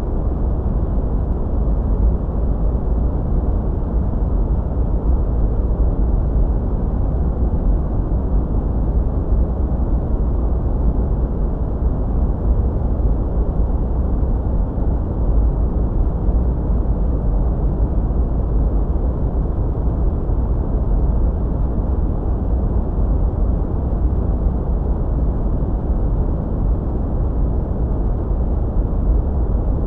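Steady sleep noise: a deep, even rumble of noise, strongest in the bass and dull, with almost nothing in the treble.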